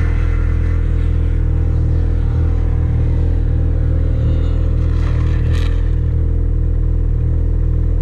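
Snowmobile engine idling steadily close by, a loud, even engine note that does not rise or fall.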